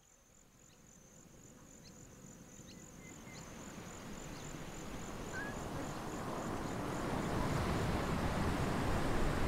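A high, rapidly pulsing insect trill fading out, while the rush of ocean surf fades up and grows steadily louder.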